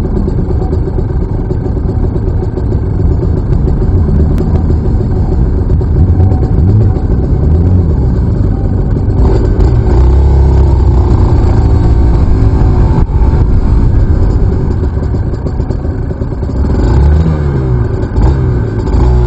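Aprilia RS 125's two-stroke single-cylinder engine running under the rider, its revs rising and falling several times as the bike is ridden.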